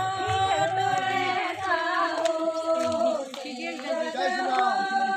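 A group of women singing a devotional song together, with hand claps among the voices.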